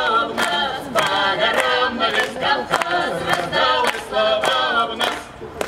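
Small mixed folk ensemble of women's and a man's voices singing a Cossack song in harmony, without instruments, with hand claps keeping the beat about twice a second. The singing ends a little after five seconds in.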